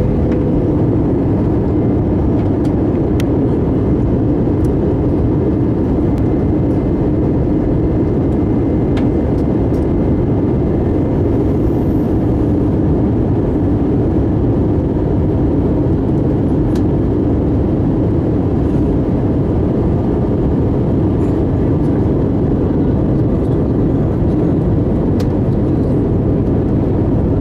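Steady engine and airflow noise of an Airbus A319 in flight, heard from inside the passenger cabin during the landing approach.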